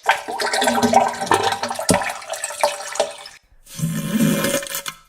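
Wet, splashing toilet sound effect in two stretches: a long one of about three and a half seconds, then a shorter one of about a second after a brief gap.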